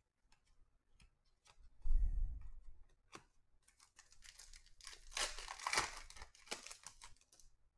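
Foil wrapper of a Panini Contenders football card pack being torn open and crinkled, a dense crackling from about four seconds in until near the end. Before that come light clicks of cards being handled and a dull thump about two seconds in.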